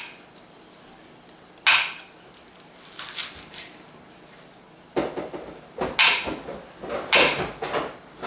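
Knife chopping green onions on a plastic cutting board: sharp knocks, a few at first, then a quicker irregular run of them from about five seconds in.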